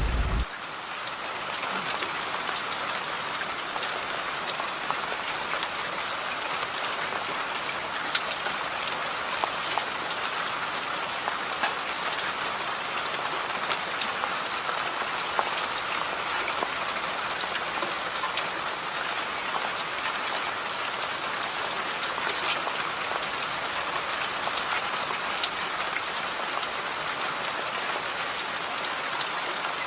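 Steady rainfall: a dense, even hiss with many single drops ticking on surfaces. A low rumble of wind on the microphone cuts off half a second in.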